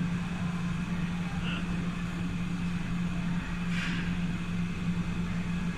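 Steady low mechanical hum with a noisy hiss underneath, like a fan or machine running, with a brief faint hiss about four seconds in.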